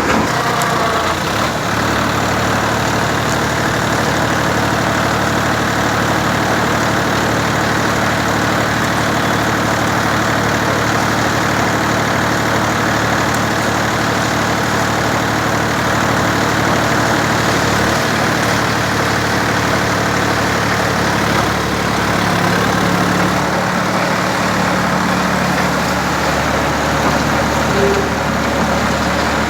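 Tractor engine running steadily as the power source of a self-loading concrete mixer.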